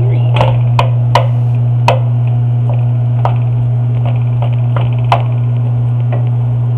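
A steady low hum under about half a dozen sharp clicks and knocks of things being handled, most of them in the first two seconds.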